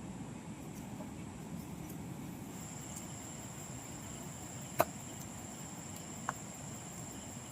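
Steady high-pitched insect drone with a low outdoor rumble beneath it. Two sharp clicks break through: a loud one about five seconds in and a fainter one about a second and a half later.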